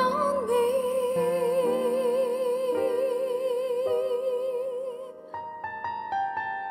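A woman sings one long held note with vibrato over piano chords, near the end of a soul song. Her voice stops about five seconds in and the piano plays on with a few more chords.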